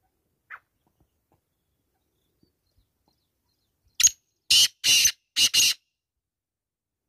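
Male black francolin calling: a run of five loud, harsh, scratchy notes in under two seconds, starting about four seconds in.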